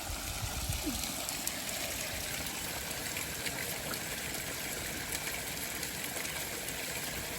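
Small floating solar-powered pond fountain spraying, its water trickling and splashing steadily back into the pond.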